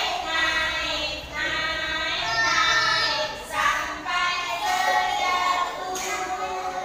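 Young kindergarten children singing a song together in chorus.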